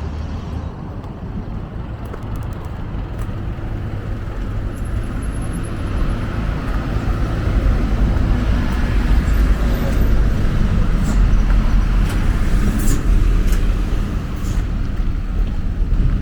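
Road traffic noise: a low vehicle rumble that builds about six seconds in and eases off near the end, as of a vehicle passing close by.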